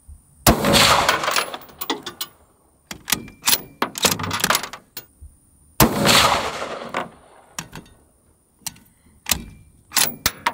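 Two shots from a bolt-action 5.56 rifle, about five and a half seconds apart, each with a long fading echo. Between and after them come runs of short metallic clicks as the bolt is worked.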